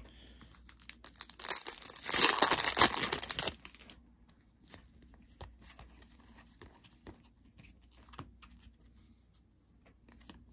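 Foil trading-card pack wrapper crinkling and tearing open for about two seconds, starting about a second and a half in. After that come faint clicks of the cards being slid and flipped in the hands.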